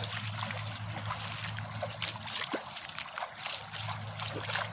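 Feet wading through shallow water, giving a continuous run of irregular splashes and sloshes, one with each stride.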